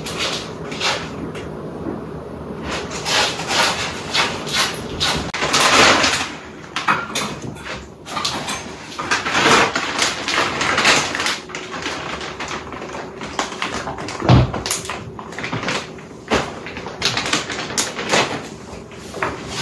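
Pet leashes and harnesses clinking and rustling as a cat paws and chews at them: the metal snap clips and buckles rattle in irregular clatters, with one heavier thump about two-thirds of the way through.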